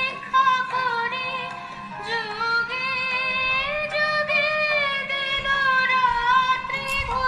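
Background music: a song with a sung melody.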